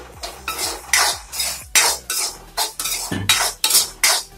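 A steel spoon scraping and stirring thick masala around a metal kadai, in quick, rhythmic strokes of metal on metal, about two to three a second.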